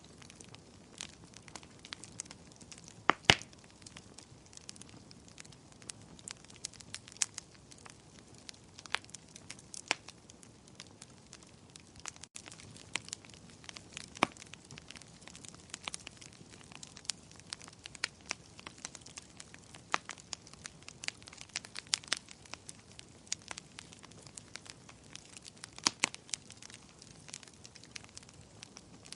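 Wood fire burning in a fireplace, with irregular sharp crackles and pops over a faint steady hiss. A pair of louder pops comes a little after three seconds in.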